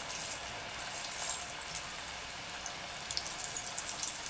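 Breaded pork belly cubes deep-frying in hot soybean oil: a steady sizzle with fine, rapid crackling.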